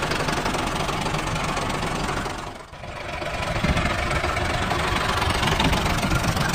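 Tractor engine running at a steady idle with a knocking beat. It fades briefly about two and a half seconds in, then picks up again.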